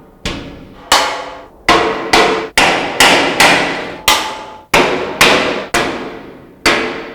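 Rubber mallet striking a steel cabinet beam to seat it into the side panels' slots: about a dozen blows, roughly two a second, each leaving a short metallic ring in the sheet steel.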